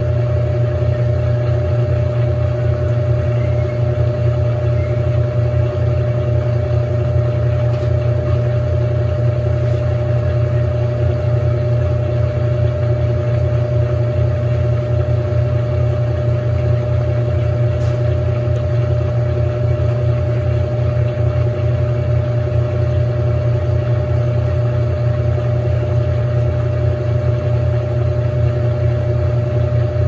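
GE Imagination 10 kg top-loading washing machine (LVGE1020) in its final spin at 670 RPM, the basket spinning at a constant speed. The motor and drum give a steady low hum with a steady whine above it.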